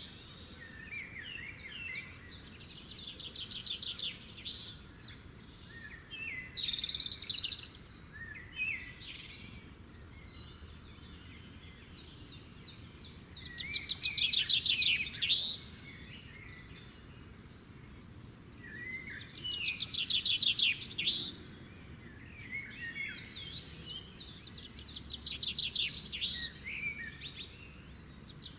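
Birds singing: phrases of rapid, high chirping trills that come and go every few seconds over a steady low background noise.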